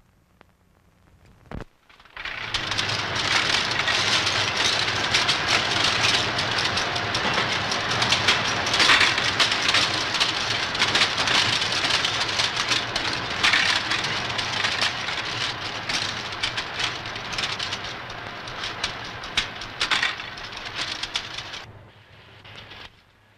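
Linotype typesetting machines clattering: a dense run of many sharp clicks over a low hum, starting about two seconds in and falling away near the end. A single knock comes just before it.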